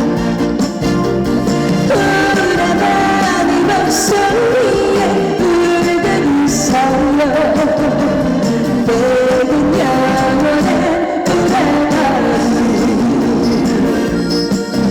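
Live trot song over a festival PA: a woman singing over an accompaniment track.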